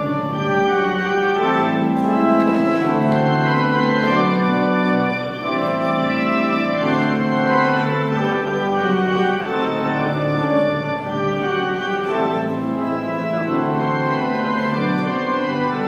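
Organ music playing sustained chords that change every second or so.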